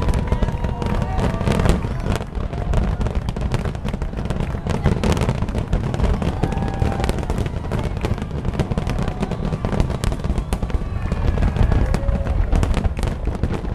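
Aerial fireworks shells bursting in rapid, overlapping succession: a continuous low rumble of booms with many sharp bangs and crackling on top.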